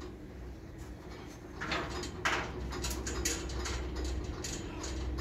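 Knocks and scrapes on a steel scaffold as a worker climbs down it: two louder scrapes about two seconds in, then a quick run of light metallic clicks, over a steady low hum.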